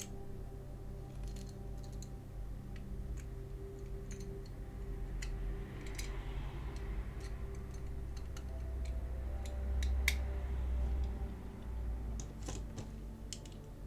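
Scattered small clicks and taps of tiny diecast model parts and a small screwdriver being handled while the van is screwed back together, over soft, steady background music.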